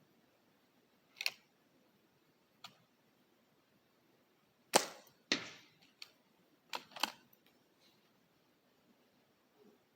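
A .177 air rifle being shot: a series of sharp cracks and clicks. The loudest comes a little under five seconds in, with a second close behind it.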